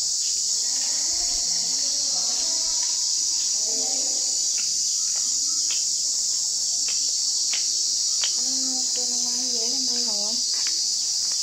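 A steady, high-pitched chorus of insects with scattered light clicks. A faint voice comes in briefly about eight seconds in.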